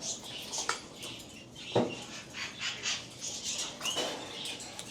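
Pet birds making short high-pitched chirps and calls, with scattered clicks and one sharper knock a little under two seconds in.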